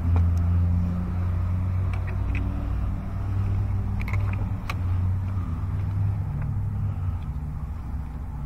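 Steady low mechanical hum, with a few light clicks and taps as a new throttle body is handled and set into place on the engine's intake.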